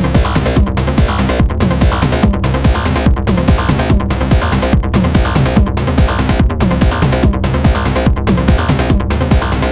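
Electronic techno music from Moog semi-modular synthesizers and a Roland TR-09 drum machine: a steady repeating drum pattern over a low synth bass line.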